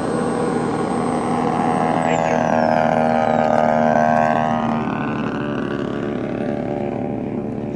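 DLE 55 single-cylinder two-stroke petrol engine of a large-scale radio-controlled Tiger Moth biplane running in flight. Its note climbs and then drops in pitch through the middle, loudest about four seconds in.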